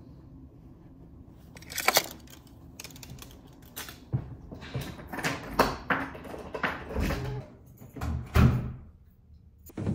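Handling noises: a sharp knock about two seconds in, then a busier run of clicks and low thumps from about four seconds on.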